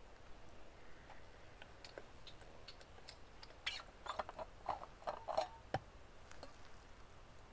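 Faint crackling and popping of a small wood fire under a camp grill. There are scattered ticks at first, then a run of louder pops a little past the middle and one sharp crack.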